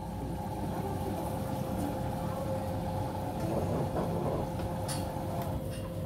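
Beko WMB81241LW front-loading washing machine filling with water at the start of its wash cycle: a steady hum with running water, and a few light clicks about five seconds in.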